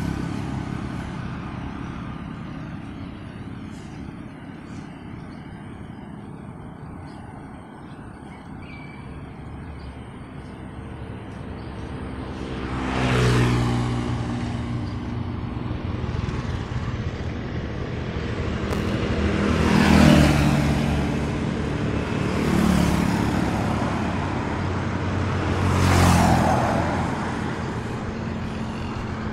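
Motorcycles and other road vehicles passing one at a time over a steady traffic hum, about four pass-bys in the second half, each rising and fading away.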